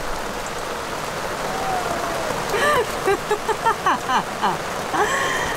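Steady heavy rain falling on a sailboat's deck. A person's voice breaks in over it in short, untranscribed bits from about the middle on.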